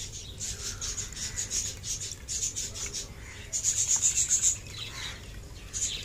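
Budgerigars chirping in rapid high-pitched twitters, loudest in a burst between about three and a half and four and a half seconds in.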